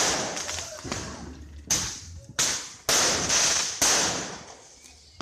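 Fireworks bursting: five sharp bangs at uneven intervals, each trailing off over about a second.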